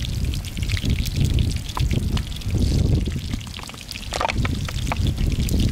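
Hot oil sizzling and crackling in a small pan of battered shrimp frying over a wood fire, with many sharp pops. A heavy low rumble comes and goes throughout, wind buffeting the microphone.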